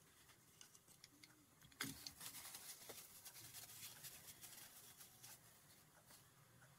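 Faint handling of disassembled Swiss Arms P1911 air pistol parts on a rubber cleaning mat. A light knock comes about two seconds in, followed by a run of small metallic clicks and taps.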